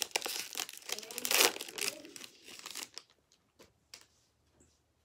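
A baseball card pack's wrapper crinkling and tearing open for about three seconds, followed by a few faint ticks.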